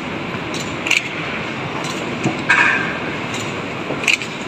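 Steady background noise of a large hall with three short, sharp clinks: one about a second in, a louder one just past the middle and one near the end.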